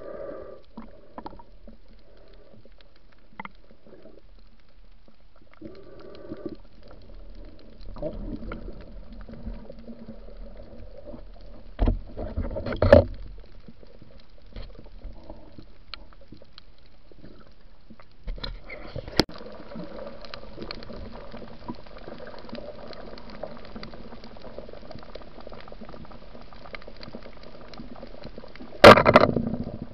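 Underwater water noise picked up by a submerged camera: a steady muffled bubbling hiss with scattered clicks, and a few louder rushes about twelve seconds in and again near the end.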